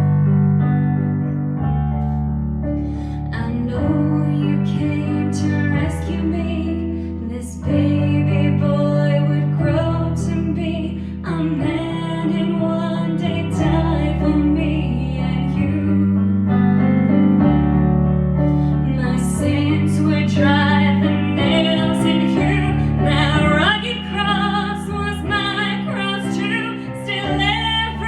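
Music played on piano, with sustained chords changing every second or two and a melody above them.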